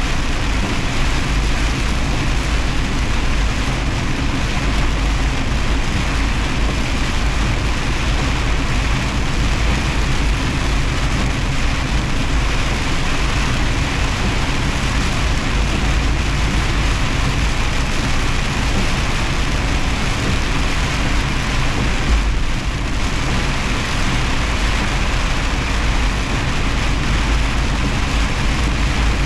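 Semi truck driving through heavy rain: a steady low rumble of engine and road with a dense, even hiss of rain and tyre spray.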